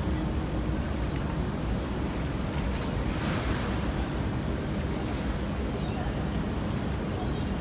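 Ferry wharf ambience: a steady low engine rumble with wind on the microphone, and a short hiss about three seconds in.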